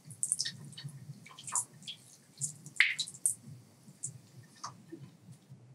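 Irregular water drips plinking in a small bathroom, a few a second, the loudest a little before three seconds in.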